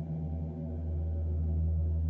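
Didgeridoo drone: a deep steady fundamental with a stack of overtones, ringing in a strongly reverberant stone room. The drone dips briefly in the first half-second, then holds steady.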